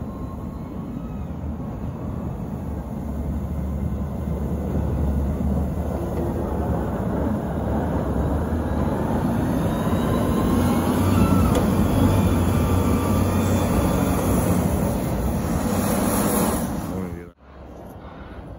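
Caterpillar 950M wheel loader's diesel engine running under load as its plow and wing blade push snow along the road, growing louder as it passes close by. The sound cuts off suddenly near the end.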